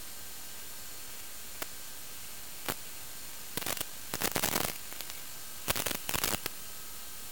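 Steady radio static hiss from the model plane's onboard video link, broken by a couple of clicks and then two bursts of crackling interference, one about halfway through and one about a second later. No motor sound is heard.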